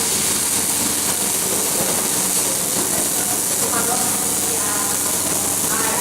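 Electric arc welding: the arc giving a loud, steady hiss, with faint voices behind it.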